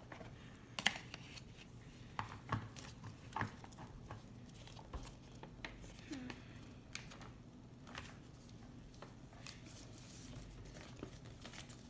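Faint handling of toy packaging being opened: scattered small clicks, snips and crinkling rustles, a few sharper ones in the first few seconds.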